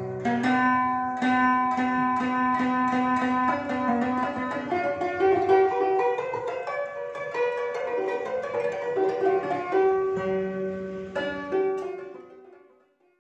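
Intro music: a quick melody on a plucked string instrument, note after note, fading out near the end.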